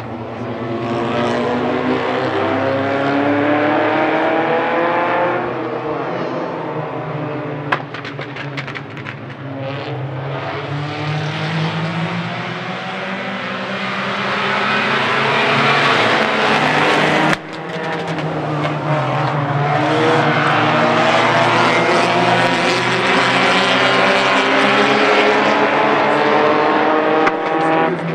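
A pack of small tuner-class race cars running together on a short oval, their engines revving. The engine notes climb and sink and the sound swells and fades as the pack passes, with a sudden break about two-thirds of the way through.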